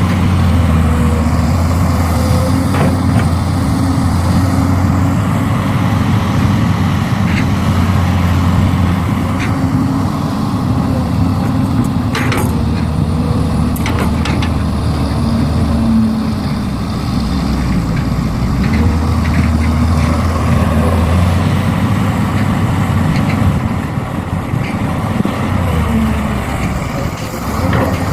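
Heavy diesel engine of earthmoving equipment running steadily, its low note swelling and easing with load, with a few sharp knocks about halfway through.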